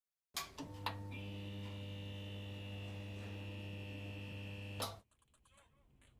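Electrical hum sound effect under a logo sting. A steady low buzzing hum switches on with clicks and is joined by a higher whine about a second in. It cuts off suddenly with a click about five seconds in, and a few faint ticks follow.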